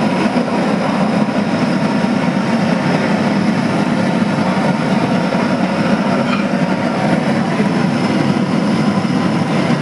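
Steady, loud rushing hum of restaurant kitchen equipment, even throughout with no clear beats or breaks.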